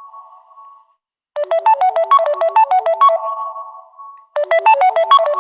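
Samsung phone notification tone playing from a recording: a quick run of bright, keyboard-like notes that rings out. It starts about a second in and plays again near the end.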